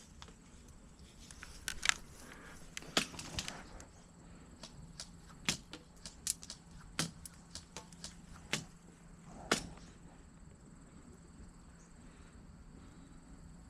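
Footsteps pushing through dry brush, twigs and leaves cracking underfoot in an irregular string of sharp snaps that thins out about ten seconds in, over a steady high insect drone.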